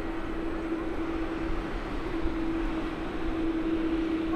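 Jet airliner engines running steadily: a constant tonal hum over an even rushing noise.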